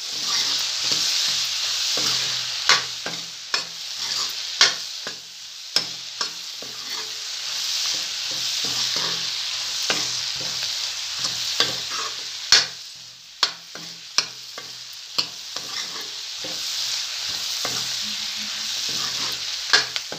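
Sliced onions frying in oil with spices in a metal kadhai: a steady sizzle, broken by irregular sharp clicks and scrapes as a steel ladle stirs them against the pan.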